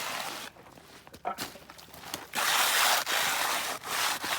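Hand trowel scraping back and forth across fresh concrete while it is being finished: a few short strokes, then longer, louder strokes from about halfway.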